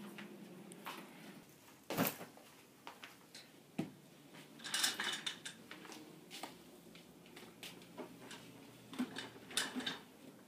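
Scattered light knocks, clinks and clatters as a mug is carried and set down on a desk and someone settles at a computer. The sharpest knocks come about two seconds and about four seconds in, with a short run of clinks around five seconds and a few more near the end.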